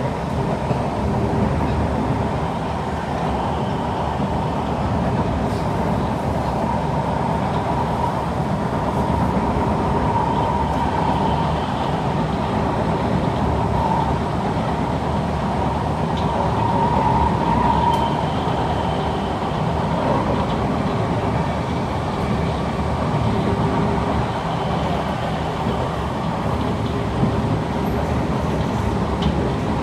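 Cabin running noise of a Kawasaki C151 metro train in motion: a steady rumble of wheels on rail with a faint, slightly wavering whine from the traction motors.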